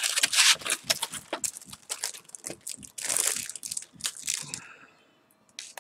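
Clear plastic wrapping around a stack of paper sticker sheets crinkling and crackling as it is handled, dying away near the end.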